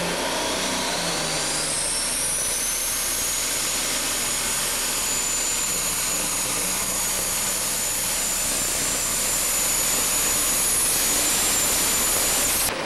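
Super Stock pulling tractor's turbocharged engine running flat out under load on the sled, with a high turbo whine that rises over the first two or three seconds and then holds steady. The sound cuts off suddenly near the end.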